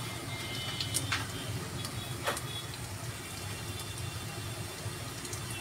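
Chopped garlic gently sizzling in melted butter on a low flame, with faint crackles and a couple of sharper pops over a steady low rumble.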